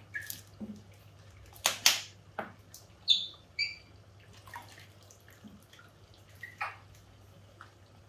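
AquaClear 30 hang-on-back aquarium filter just switched on: its motor gives a low steady hum while water drips and plinks irregularly, the filter not yet primed and slow to draw water.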